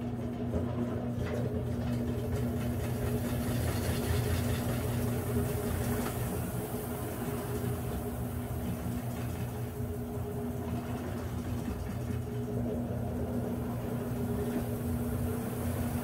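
Consul Facilite 10 kg top-loading washing machine, freshly rebuilt mechanically, running with its basket spinning the wet load: a steady motor and transmission hum, with a fainter whine that rises slightly near the end.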